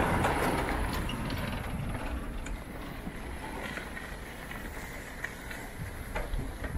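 Riding a bicycle: steady wind rush on the microphone over rolling tyre noise, loudest at first and easing off after a couple of seconds, with a few small clicks and rattles from the bike.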